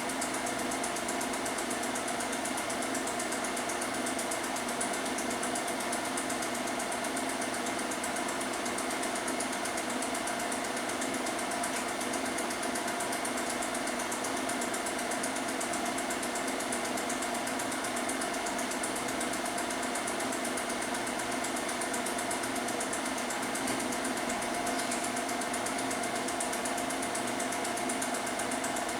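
Film projector running steadily, its motor and film transport making a constant mechanical whir.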